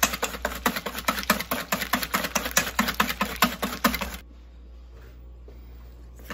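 Wire balloon whisk beating cream and sugar by hand in a stainless steel bowl to whip chantilly: rapid rhythmic clicking of the wires against the metal bowl, about five strokes a second. It breaks off about four seconds in and starts again just at the end.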